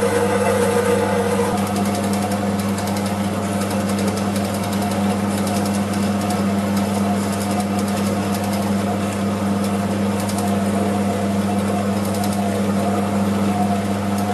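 Metal-cutting bandsaw running on its high speed setting, the blade sawing through a cast aluminium alloy car wheel rim. It makes a steady motor hum under the continuous rasp of the blade teeth in the aluminium.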